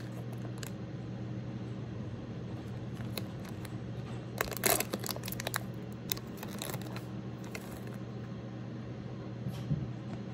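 Plastic snack-cake wrapper crinkling and tearing as it is pulled open, in crackly bursts about four to five seconds in and again around six to seven seconds, over a steady low hum.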